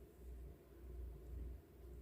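Quiet room tone: a faint steady low hum with no distinct sounds.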